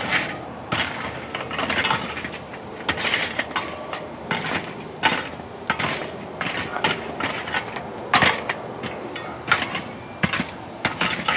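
A metal rake scraping and dragging charcoal briquettes across the metal charcoal tray of a La Caja China roasting box, the briquettes clattering and clinking in irregular strokes.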